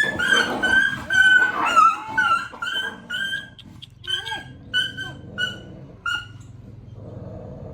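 A dog yelping and whimpering in a rapid string of short, high-pitched cries, about three a second, that taper off and stop about six seconds in.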